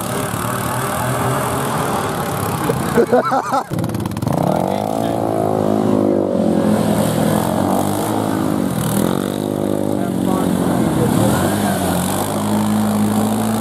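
A vehicle engine idles, with a brief clatter about three seconds in. From about four seconds in it revs up and down over and over, and near the end it holds a steady higher pitch.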